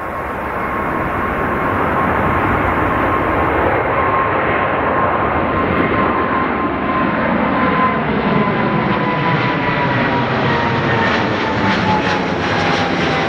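Boeing 777-300ER's twin GE90-115B turbofans at climb power just after takeoff: loud, steady engine noise that builds over the first couple of seconds, with a fan whine that slowly falls in pitch as the aircraft passes overhead.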